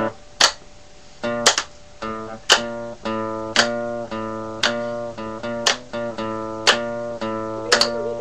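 Acoustic guitar strummed in a steady rhythm, about one chord a second, each chord left to ring into the next.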